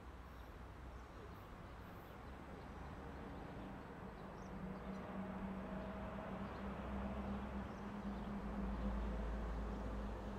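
Electric train humming with a steady low tone, growing gradually louder over the seconds.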